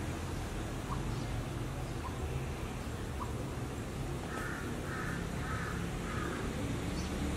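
A crow cawing four times in quick succession, about half a second apart, over a steady low rumble.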